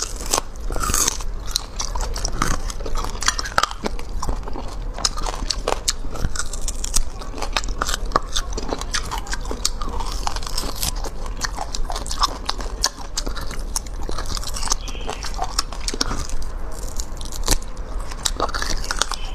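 Close-miked biting and chewing as someone gnaws meat and marrow off pieces of beef marrow bone, with many short, irregular clicks and crunches.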